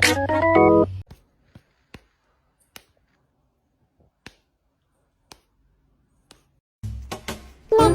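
Organ music stops about a second in, then a handful of short, sharp clicks sound at uneven intervals over a near-silent background. Music starts again near the end.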